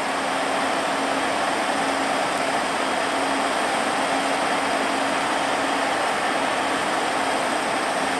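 PKP Cargo ET22 six-axle electric freight locomotive hauling open coal wagons and moving slowly: a steady machine hum with one constant tone running through it.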